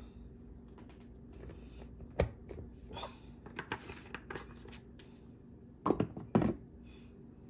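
Kitchen handling sounds on a countertop: a sharp click about two seconds in, faint scraping and rustling, then two dull knocks near the end.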